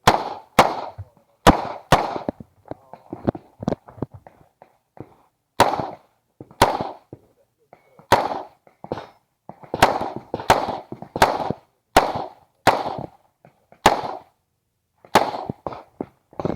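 9 mm Uzi Pro pistol firing shots, sharp cracks that ring out briefly, fired singly and in quick pairs with short pauses between groups.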